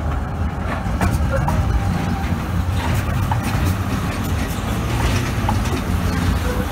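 Zurich VBZ Tram 2000 articulated tram rolling slowly past on curved track through a junction. Its wheels rumble steadily on the rails, with scattered sharp clicks over the points and joints and a few brief squeaks.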